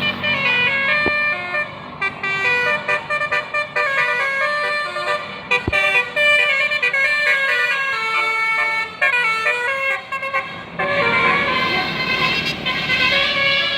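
Telolet basuri multi-tone bus horn playing a quick melody of short, stepped notes. About eleven seconds in, the notes grow denser and overlap over a hiss.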